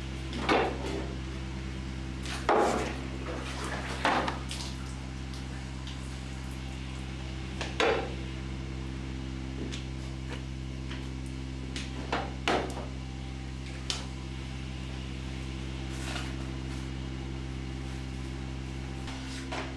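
Stainless-steel pressing plates and plastic cheese moulds knocking and clattering as they are stacked in a vertical cheese press: a handful of sharp knocks a few seconds apart, over a steady mechanical hum.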